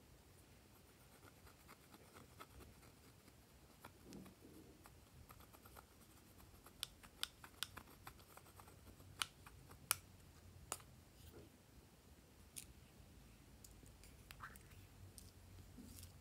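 Metal spatula scraping and picking at pressed blush powder in a plastic compact: quiet scratching with a scatter of sharp clicks, most of them in the middle stretch.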